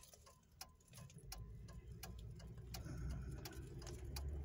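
Car turn-signal indicator clicking steadily inside the cabin, about two clicks a second, while the car turns. A low engine and road rumble comes up about a second in as the car gathers speed.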